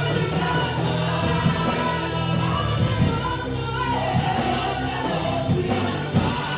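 Live worship music: a band with steady bass and drums, and voices singing held notes together.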